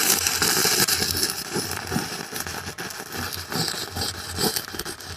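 Stick (arc) welding with a 6013 electrode: a steady crackling sizzle of the arc with a low electrical buzz underneath and irregular sharp pops.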